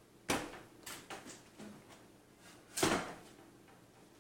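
A cardboard graphics-card retail box being handled, giving several sharp knocks and scrapes, the loudest near the end.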